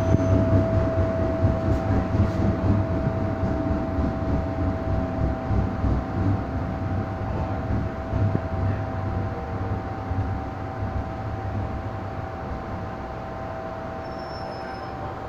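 MTR M-Train electric multiple unit heard from inside the carriage as it brakes into a station: the low running rumble of the wheels fades steadily as the train slows, under a constant high-pitched whine.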